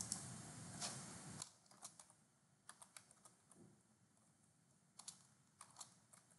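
Faint computer-keyboard typing: irregular single keystrokes and short runs of clicks as a word is typed.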